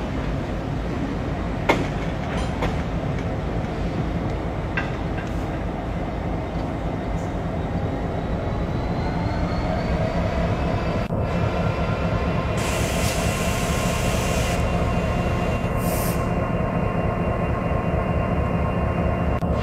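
Train running on the rails: a steady low rumble with a few sharp clicks of the wheels early on. About halfway a wheel squeal of several pitches sets in and grows, with bursts of high hiss near the end, as the train changes track over the points.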